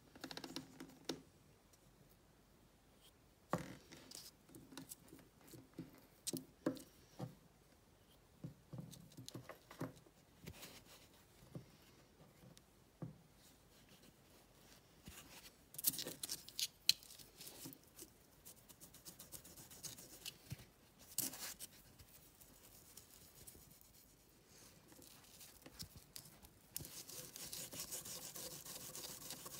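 Scattered small clicks and taps as a polish tin and foam pad are handled over an open-ended steel wrench. Near the end, a steady brisk rubbing starts as the wrench is buffed with a cloth.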